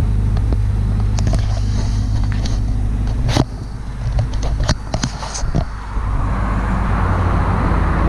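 Enclosed generator set's engine running steadily, a low, even hum; it gets quieter after about three seconds, with a few sharp clicks midway.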